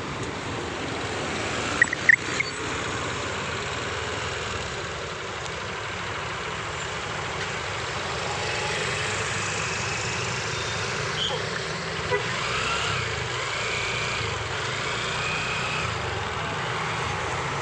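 Roadside traffic: the steady engine and road noise of buses and other vehicles on the move, with a few sharp clicks or knocks about two seconds in.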